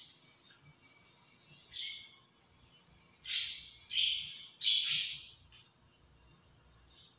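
Sips and slurps of thick, slippery aloe vera juice drunk from a mug: a short one about two seconds in, then three louder ones in quick succession from about three seconds in.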